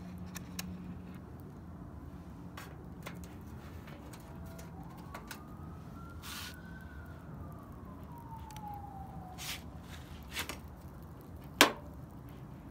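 Metal kebab skewers clicking and knocking as they are handled, with a sharp clack near the end as they are laid over the charcoal grill. A faint siren rises and falls once in the middle.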